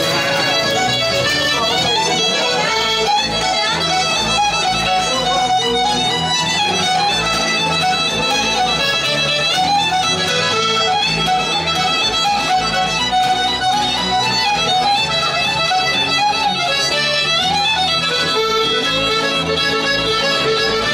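Irish traditional music session: piano accordion and fiddle playing a tune together over strummed acoustic guitar.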